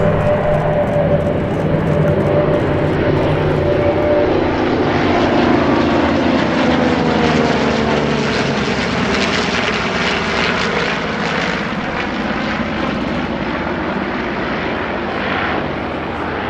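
Massed piston engines and propellers of a formation of World War II warbirds, including a Grumman Avenger and a Supermarine Spitfire, passing overhead. The drone is steady at first, the pitch sags as the formation goes by in the middle, and then it slowly fades.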